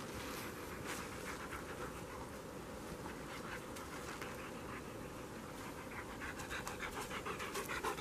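German Shepherd panting hard after running, in quick short breaths that grow louder over the last couple of seconds as the dog comes close.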